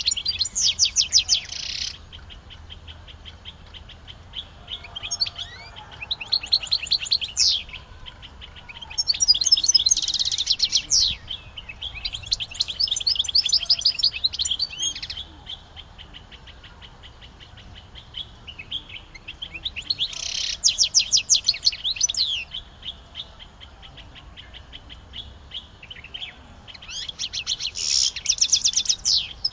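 A songbird singing in repeated phrases of rapid, high trills and chirps, each phrase lasting one to three seconds, with short pauses between them.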